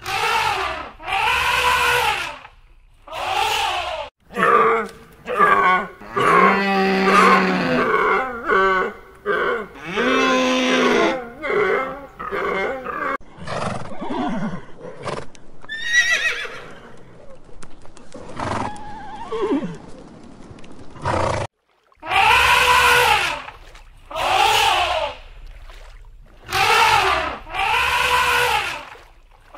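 Repeated loud animal calls, each a short cry that rises and falls in pitch, with a stretch of denser, more varied calling in the middle.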